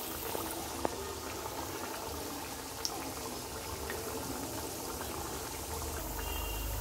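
Wheat-flour biscuits deep-frying in hot oil in a wok: a steady sizzle with a few sharp pops.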